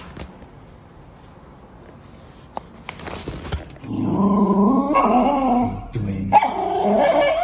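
A dog vocalizing in two long, wavering calls. The first starts about halfway through and the second near the end, after a quieter stretch with a few faint clicks.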